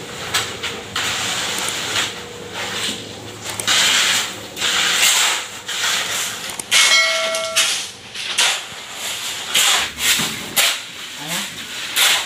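Shovel blades scraping and scooping wet sand-and-cement mix on a concrete floor, in a run of irregular rasping scrapes. A short high squeal-like tone sounds once about seven seconds in.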